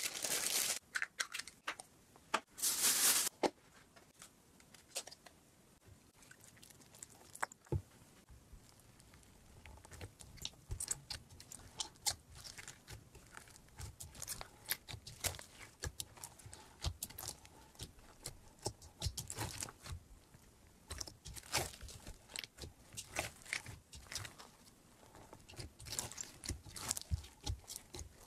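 Fingers squishing and kneading fluffy slime mixed with foam beads in a bowl, giving a run of small crackling crunches and squelches. Two loud short rushing hisses come in the first few seconds.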